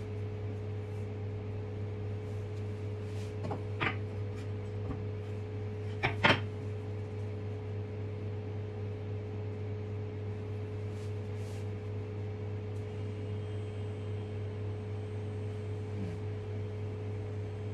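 Steady low electrical hum of a kitchen appliance, with a few short knocks about four and six seconds in.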